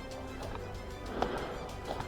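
Music with held notes over a quick ticking rhythm, with two sharp clicks near the middle and end.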